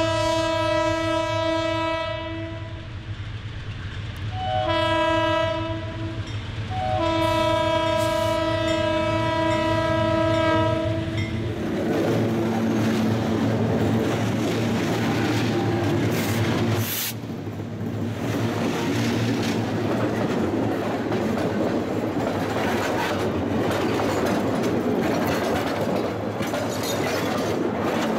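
Horn of LS&I GE U30C diesel locomotives sounding three blasts as a grade-crossing warning, the last held about four seconds, with the diesels' engines running underneath. About twelve seconds in the horn is done and loaded iron-ore cars roll past close by, steel wheels clattering steadily over the bolted rail joints.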